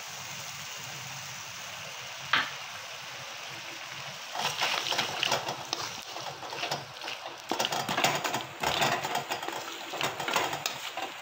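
A spatula stirring and scraping a tofu and vegetable stir-fry around a metal kadai over a steady sizzle. A single knock comes a little past two seconds in, and from about four seconds the stirring turns into repeated scraping strokes against the pan.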